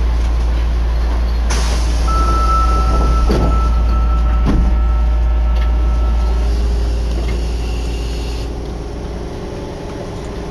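Subway train on the Nagahori Tsurumi-ryokuchi Line stopped at a platform, with a steady low rumble. A brief hiss comes about a second and a half in, then a single steady electronic warning tone sounds for about four seconds as the doors close. Near the middle a new steady hum starts as the train pulls out of the station.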